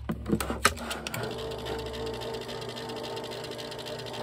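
Electric die cutting and embossing machine (Joelver Maker A4): a few clicks as its button is pressed, then from about a second in its motor runs with a steady drone as the rollers feed the plate sandwich through.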